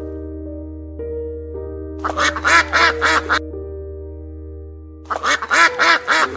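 Two runs of rapid quacking calls, about four a second, from a duck-like waterfowl. The first comes about two seconds in and the second about five seconds in, each lasting over a second, over background music with held notes.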